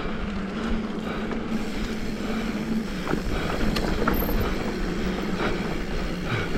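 Mountain bike rolling downhill on a dirt trail: the rear hub's freewheel ratchet buzzing steadily as a low, even tone while coasting, over rushing tyre and trail noise with scattered small knocks.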